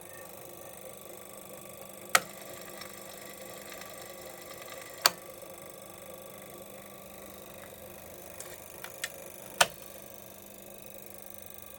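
Chronoscope's electrically maintained 25 Hz tuning fork and synchronous motor running with a steady mechanical buzz. Three sharp, loud clicks about two to four and a half seconds apart, with a few fainter clicks just before the third; after the third the low hum drops slightly.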